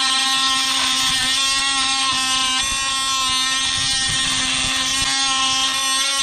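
DeWalt DCS356 brushless oscillating multi-tool running steadily with a DeWalt blade cutting into a hardened grade 8 steel bolt: a loud, even buzz with a metallic rasp, which cuts off suddenly at the end. The blade is dulling on the hard bolt and cutting slowly.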